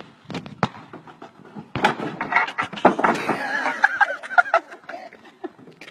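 A skateboard and rider knocking on wooden steps, a few sharp clacks in the first two seconds, then a person laughing hard for about three seconds.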